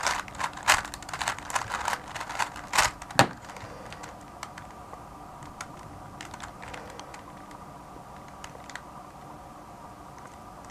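A 3x3 Rubik's cube being turned rapidly by hand: a quick run of plastic clicks and clacks that stops about three seconds in, followed by a few faint, scattered clicks as the cube is handled.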